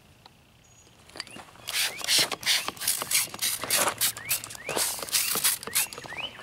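Hand trigger spray bottle of citrus degreaser spritzing onto a plastic engine cover in a rapid series of short hissing squirts, about two to three a second, starting after a quiet second and a half.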